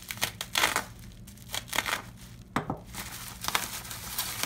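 Plastic bubble wrap crinkling and tearing as it is pulled open by hand, in a string of short, irregular bursts.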